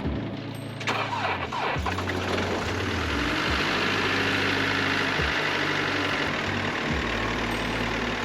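Mercedes Sprinter van's diesel engine starting about a second in from a deep-frozen cold start at around minus 40 °C, then settling into a steady idle. Background music plays underneath.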